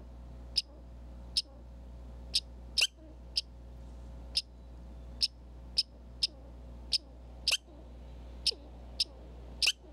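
Red squirrel calling with a string of short, sharp, high-pitched chips, about one to two a second at uneven spacing, a few of them louder than the rest. A steady low hum runs underneath.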